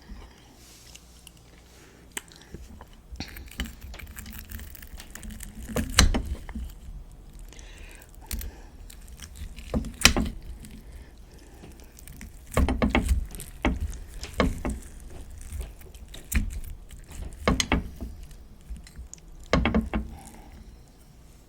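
Close-miked eating sounds: chewing and handling of food and utensils, with several sharp clicks or knocks spread irregularly through.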